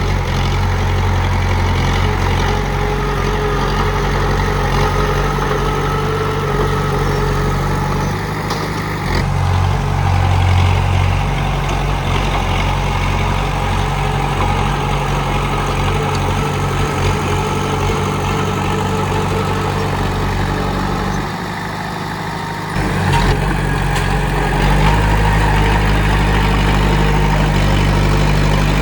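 Komatsu D31P bulldozer's diesel engine running steadily, with a change in its note about nine seconds in and a brief drop in level a little past twenty seconds before it picks up again.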